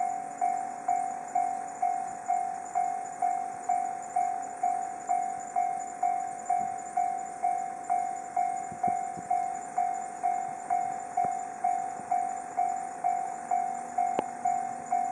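Japanese railway level-crossing alarm ringing its electronic bell, steady and repetitive at about two strikes a second, warning that a train is due. One short sharp click comes near the end.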